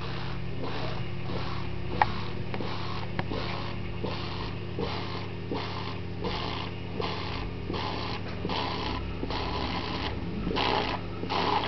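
Water being sucked through a punctured drinking straw, air drawn in through the hole with it: a regular series of short slurping pulls, about two a second, growing louder near the end.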